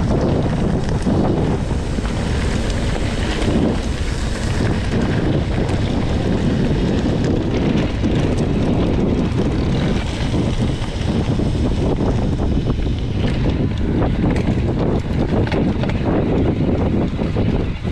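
Wind rushing over a handlebar-mounted camera's microphone as a mountain bike rides fast, with tyres rumbling and rattling over a gravel track, then over grass near the end.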